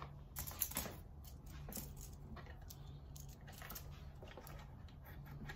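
Faint scattered clicks and light rustling of small plastic wire-marker pieces being handled, most of them in the first second, over a low steady hum.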